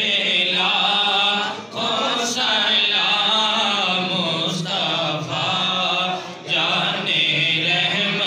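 Men's voices chanting devotional verses in long, drawn-out sung lines, breaking briefly twice.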